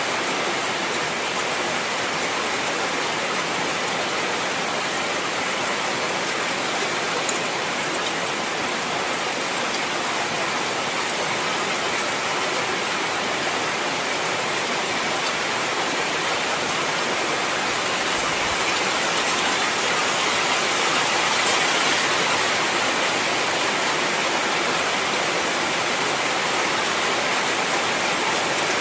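Heavy rain falling in a steady, dense hiss, swelling a little about two-thirds of the way through.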